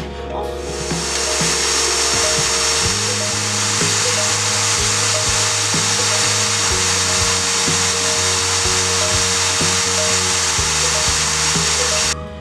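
A power grinder's spinning wheel against the metal collar (habaki) of a small katana blade: a steady hissing grind with a high whine. It starts about half a second in and cuts off abruptly near the end. Background music plays underneath.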